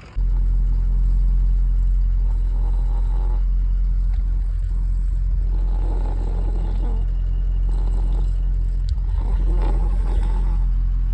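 A steady low engine hum, as of a vehicle idling. Over it, an animal snores three times, about three and a half seconds apart.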